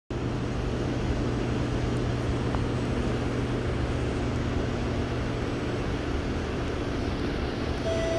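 Steady hum and hiss of an SMRT C751B electric train standing at the platform with its doors open, heard from inside the car. Near the end a clear electronic chime note begins.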